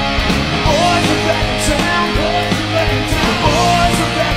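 Rock music with guitar and a singing voice.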